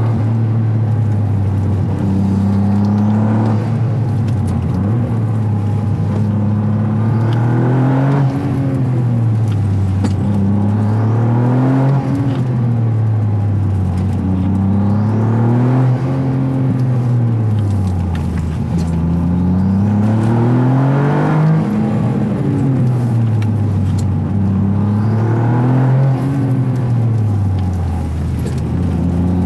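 Toyota GR Yaris's turbocharged 1.6-litre three-cylinder engine, heard through an aftermarket intake airbox from inside the engine bay, climbing through the revs and dropping back again and again, about every four seconds. Each lift-off brings a rush of air from the blow-off valve.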